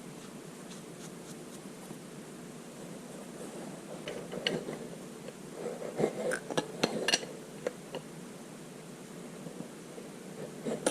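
Light clicks, taps and rubbing of small metal fuel-pump parts being handled, bunched together from about four seconds in to past the middle, over faint steady background noise.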